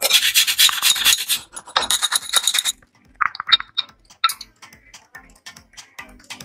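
A peeled potato rubbed quickly up and down a stainless-steel hand grater, a fast scraping rasp that stops a little under three seconds in. Then a hand swishes and squeezes grated potato in a glass bowl of water, with scattered small clicks and splashes.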